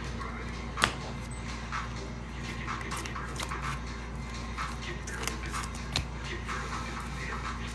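Trading cards and pack wrappers being handled: scattered light clicks and crinkles, with a sharper click about a second in and another about six seconds in, over a steady low hum.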